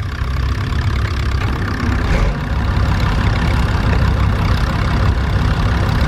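Vintage tractor engine running steadily as it pulls a plough.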